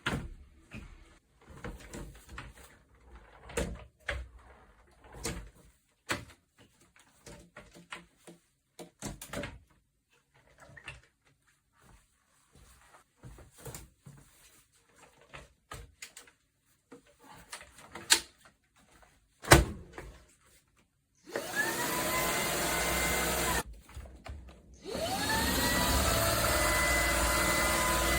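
Scattered plastic clicks and knocks of the vacuum being handled for about twenty seconds. Then the Shark PowerPro IZ380EU cordless stick vacuum's motor is switched on and spins up with a rising whine, runs about two seconds, stops, and is switched on again to run steadily.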